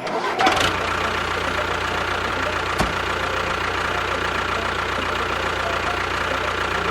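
Engine running steadily at idle, starting about half a second in, with a single short knock near the middle.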